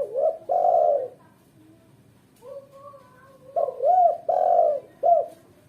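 Spotted dove (tekukur) cooing in two phrases: short arched coos and a longer held coo, then after a pause some softer notes and a second, louder run of coos. The uploader presents it as a female calling to males.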